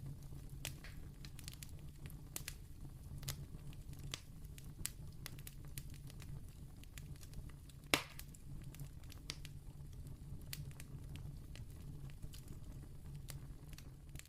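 Candle flame crackling: irregular small pops and snaps, with one louder pop about eight seconds in, over a steady low rumble.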